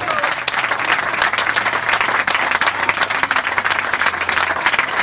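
A group of people applauding, a dense patter of many hands clapping.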